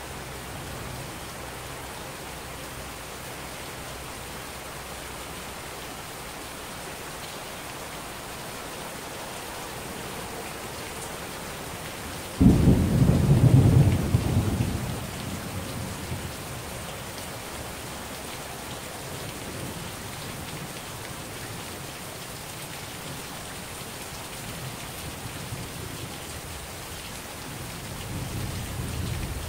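Heavy rain falling steadily, with a sudden loud clap of thunder about twelve seconds in that rumbles off over the next few seconds. A fainter low rumble of thunder rises near the end.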